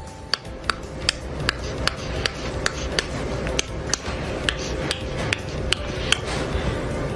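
Quick, regular kissing smacks of a woman's lips on a dog's nose, about two or three a second, over a soft steady rustle.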